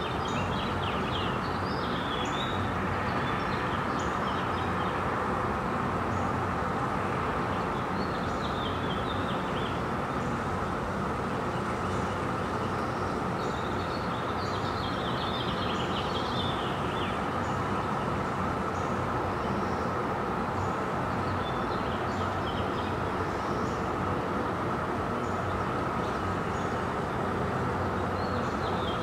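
Steady drone of distant traffic, with small birds chirping in short clusters every few seconds over it.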